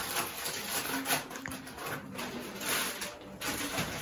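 Cardboard and plastic packaging rustling and scraping as it is handled, in a series of irregular short rustles.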